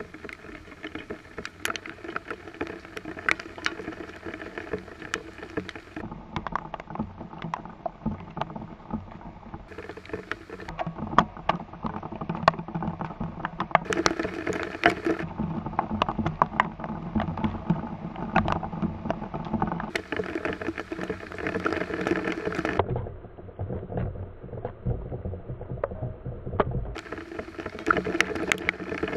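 Storm rain pattering and dripping, with many sharp drops tapping close by over a steady wash of rain; the sound changes abruptly several times.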